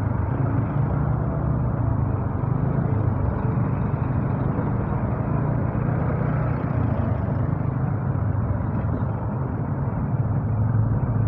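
Motorcycle engine running steadily while riding in slow traffic, with the hum of surrounding vehicles, heard dull and muffled through an earphone microphone.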